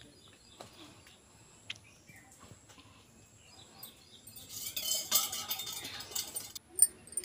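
Coconut water poured from one steel tumbler into another for about two seconds past the middle, followed by a sharp metal clink. Faint bird chirps are heard before it.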